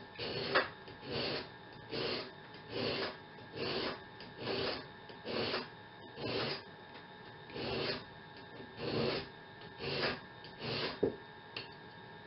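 Hand file rasping across the end of a steel band saw blade, about a dozen even back-and-forth strokes a little under one a second, stopping shortly before the end. This is the blade end being dressed with the file before the joint is brazed.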